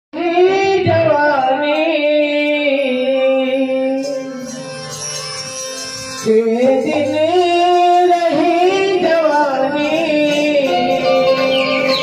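Chhattisgarhi devotional bhajan played on harmonium and electronic keyboard: long held, wavering melody notes over a sustained drone, with no drum beat. It drops softer for a couple of seconds after about four seconds, then comes back in full.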